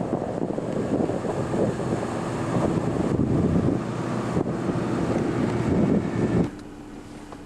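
Wind buffeting the camcorder microphone over a car engine driving hard through soft sand after a run-up. The noise drops away suddenly near the end.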